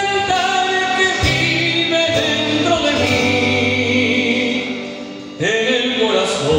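A small live band plays a lyrical Latin ballad on acoustic guitar, electric bass, violin and hand percussion, with a wavering melodic line over the accompaniment. Near the end the music briefly drops in level, then comes back in with a rising slide.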